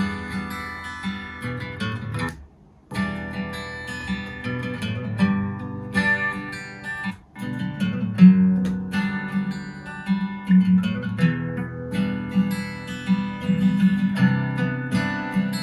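Acoustic guitar ballad music played back through home-cinema center speakers. It cuts out briefly twice, about two and a half seconds in and again about seven seconds in, as playback is switched from one center speaker to another.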